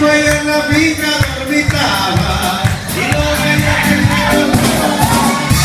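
Live marimba orchestra playing an upbeat dance medley, with a steady beat.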